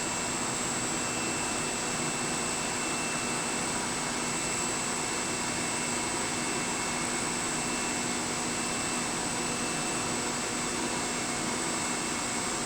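Automatic bottle washing, filling and capping machine running: a steady mechanical whir with several constant whining tones over an even hiss, no clinks or knocks.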